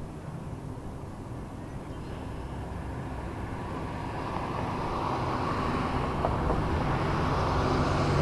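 Engine noise with a low hum and a hiss, growing steadily louder the whole time as it approaches.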